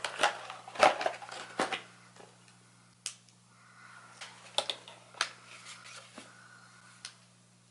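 Scattered clicks and light plastic knocks from hands handling a hobby RC truck, most of them in the first two seconds and then a few spaced out, over a faint steady hum.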